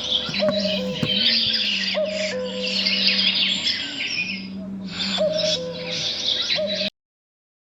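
Many birds chirping and calling, with a low sustained drone tone beneath them, ending abruptly about seven seconds in.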